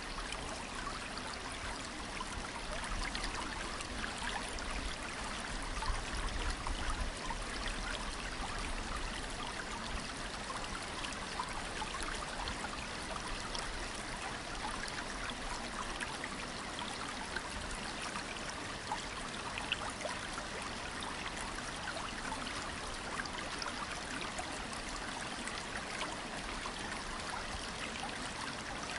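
Creek water running steadily, a continuous babbling trickle with no break, with a brief low rumble about six seconds in.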